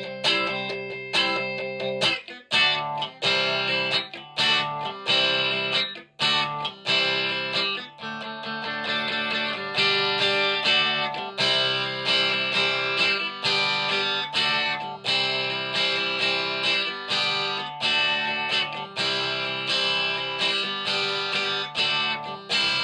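Electric guitar with both pickups selected, played through a Marshall DSL1 amp on its Classic Gain channel: a run of picked chords and single notes, the last chord left ringing near the end.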